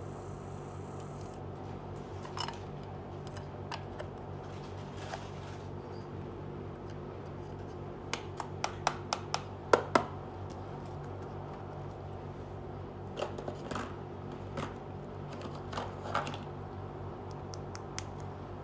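Small plastic clicks and taps from a pink toy mini washing machine being handled, its clear lid closed and the toy set down, with a quick run of sharp clicks about halfway through and a few more later, over a steady low hum.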